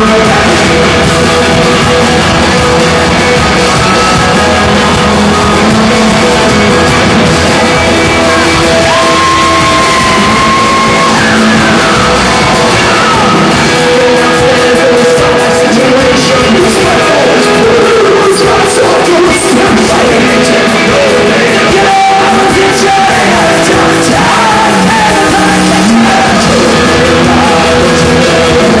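An Irish folk song played by a band with singing, loud and unbroken.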